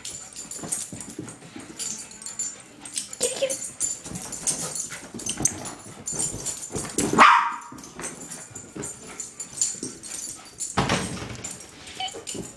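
Bichon frise barking in excitement while chasing a laser pointer dot, with one loud, high bark about seven seconds in.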